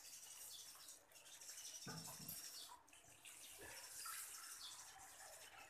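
Faint water running from a kitchen tap, drawing water into a bowl, with a couple of soft knocks.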